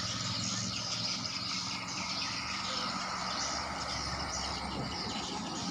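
Many swiftlets twittering in flight, a dense, constant stream of short high chirps, as the flock returns to its swiftlet house in the evening. A low steady rumble lies underneath.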